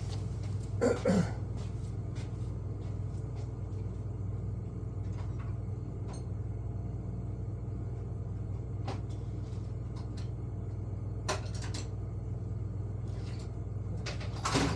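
Someone rummaging through tools and drawers in a workshop: a few short knocks and clatters, the loudest about a second in and another near the end, over a steady low hum.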